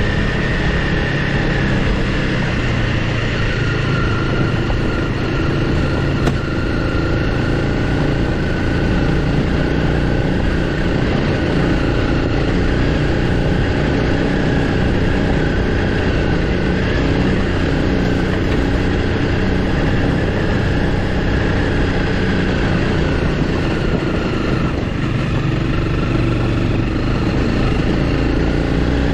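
Honda CRF300L Rally's single-cylinder engine running steadily at low road speed, heard from the rider's seat, with tyre noise on a dirt road. The engine note dips slightly about three-quarters of the way through, then picks back up.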